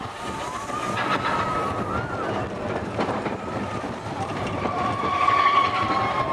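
Big Thunder Mountain Railroad mine-train roller coaster running at speed: the cars rattle along the track amid rushing wind noise, with a held high tone that swells about five seconds in.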